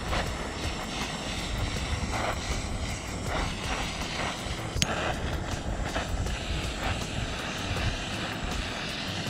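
Handheld kitchen torch flame running with a steady roar as it caramelizes the sugar crust on cake slices on a hot griddle. There are scattered soft crackles and one sharp click about five seconds in.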